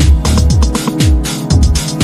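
Electronic background music with a steady beat and deep bass notes that slide downward, repeating several times.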